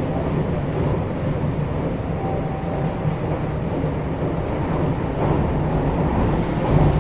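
Steady rumble of a Series 9500 electric multiple unit running, heard inside the passenger saloon, with a low hum under the rail and running noise.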